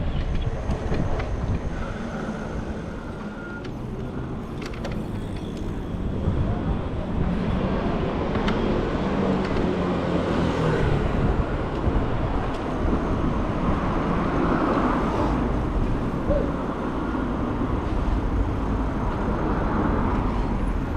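Road traffic on a city street, cars and heavier vehicles running past, with wind rumbling on the microphone.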